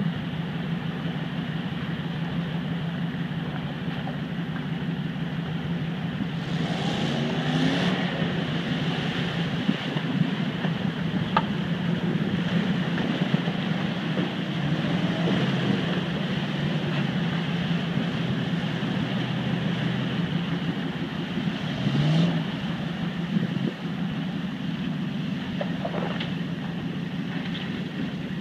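Engine of a classic Range Rover running at low revs as it drives through a shallow, rocky river, with the water rushing and splashing around its wheels. The engine note rises briefly twice, as the driver gives it more throttle.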